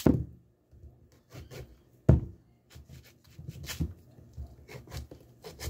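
A knife cutting a raw yam into pieces: irregular scraping and slicing through the firm flesh, with small knocks of the blade on the table, the loudest a sharp knock about two seconds in.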